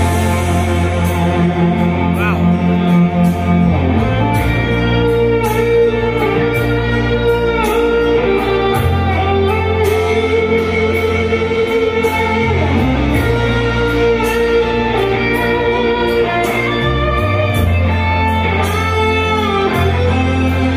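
Live electric guitar played loud through a PA, with held notes and several string bends, over a steady bass line and drum beat.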